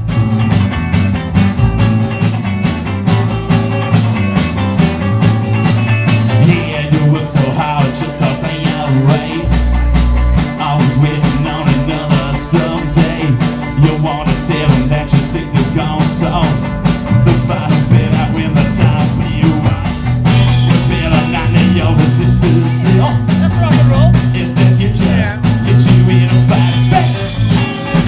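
Rock band playing live through an instrumental passage of a garage-rock song: electric guitar and bass over a steady drum-kit beat.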